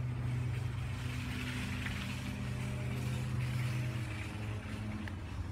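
Steady low mechanical hum of an engine or machine running, easing off a little after about four seconds.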